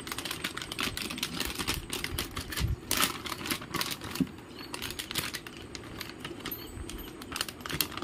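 Crinkling and rustling of a motherboard's plastic anti-static bag as it is handled and pulled open, with quick irregular crackles.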